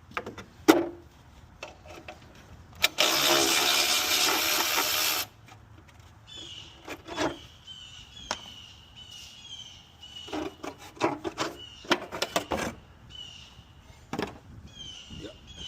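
Hand tools clinking and knocking on engine parts during thermostat-housing work, with a loud steady noise burst about two seconds long starting about three seconds in. Repeated short high chirping calls run through the second half.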